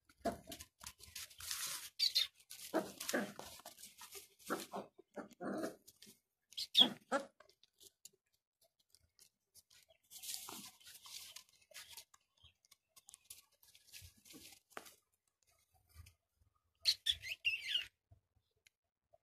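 Six-week-old Gultair puppies giving short yelps and whimpers, several in quick succession a few seconds in and a falling cry near the end, with dry straw rustling under them in between.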